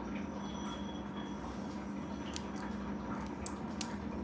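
Faint squishing and handling of a water-filled balloon, with a few small clicks in the last second or two over a steady hum.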